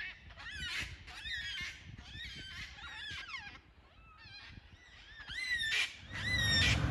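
A flock of black cockatoos calling as they fly overhead: a string of overlapping wailing calls, each rising and then falling in pitch, with a short lull around the middle.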